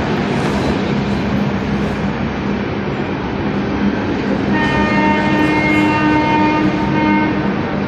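Passenger coaches of an Indian Railways express rolling past as the train picks up speed, a steady rumble of wheels on rail. About halfway in, a train horn sounds and holds for about two and a half seconds.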